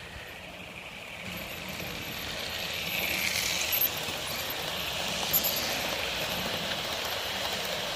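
Bachmann GWR Manor-class OO gauge model locomotive and its coaches running past on model track: a steady whirring rattle of motor and wheels on rails that grows louder as the train comes close, with a couple of sharp clicks.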